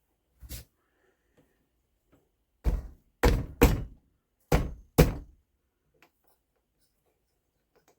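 One faint knock, then five heavy thunks in quick succession, made by pieces of wood being knocked together as a glued wooden foot is set onto the rack's base.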